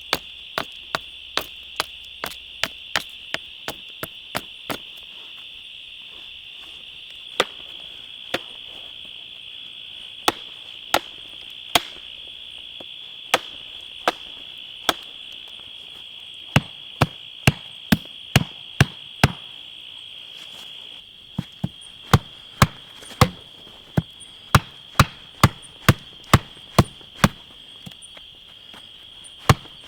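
Sharp chopping strikes of a blade into wood, scattered at first and then in quick runs of about two a second, over a steady high insect drone.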